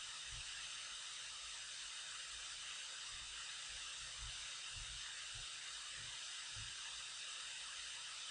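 Steady faint hiss of room tone and microphone noise, with a few soft low thumps.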